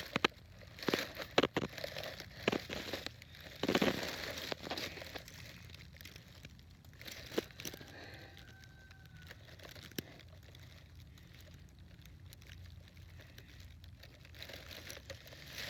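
Irregular rustling and crackling of movement close to the microphone, busiest in the first four seconds, then a few scattered clicks.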